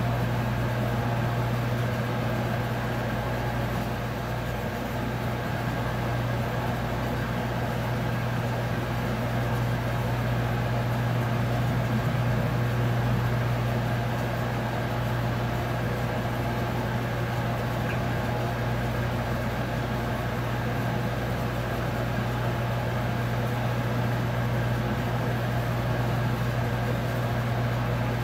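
A boat's engine running steadily at idle, an even low hum with no change in pitch, heard from on board.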